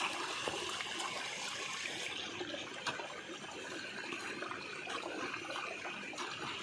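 Steady hiss of running water, with a few sharp snaps or clicks over it.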